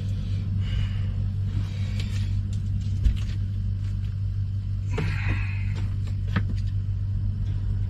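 Steady low mechanical rumble throughout. Brief scraping sounds come about two and five seconds in, and a sharp knock about three seconds in.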